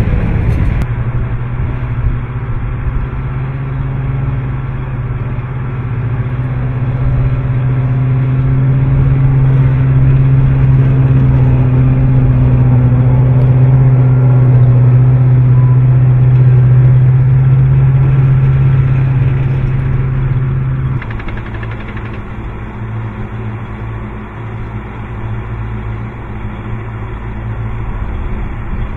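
Bradley fighting vehicle's diesel engine running under way with a steady low drone, growing louder towards the middle. About two-thirds of the way through it cuts suddenly to a quieter, more distant steady engine sound.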